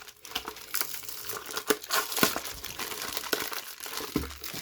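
Plastic packaging crinkling and rustling in irregular crackles as it is handled and opened to get at a Beyblade launcher.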